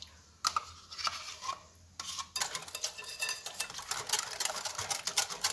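A few light taps and scrapes of a spoon as yogurt is spooned from its cup into the bowl. Then, a little over two seconds in, a hand wire whisk starts beating batter in a glass bowl: quick, steady clicking of the wires against the glass.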